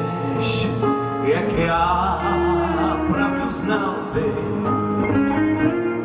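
A male lead vocalist sings long held, wavering notes into a microphone, amplified over a live rock band's accompaniment.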